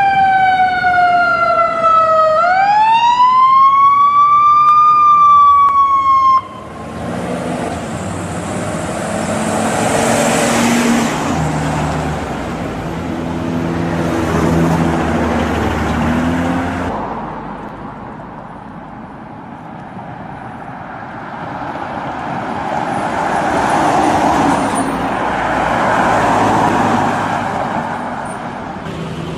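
American ambulance siren wailing, its tone sliding down, then sweeping up and falling again, until it cuts off abruptly about six seconds in. Road traffic follows: vehicle engines running with changing pitch, and passing vehicles that grow louder and fade.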